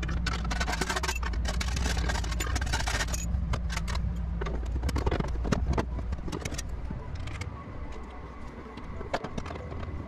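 Sheet-metal clatter and scraping from a steel breaker-panel cover being handled and fitted, with pliers and a screwdriver working on it, over a steady low hum. About six seconds in, the hum and the heaviest clatter drop away, leaving lighter clicks and scrapes.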